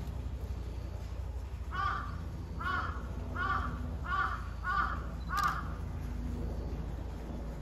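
A crow cawing six times in an even series, the caws a little under a second apart, over a low steady hum.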